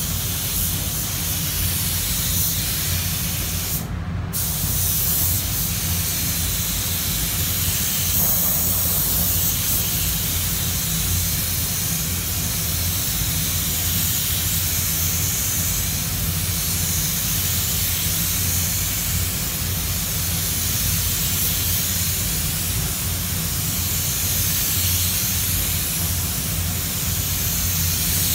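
Compressed-air paint spray gun hissing steadily as it lays a coat of base colour, over a steady low hum from the spray booth. The hiss breaks off briefly about four seconds in.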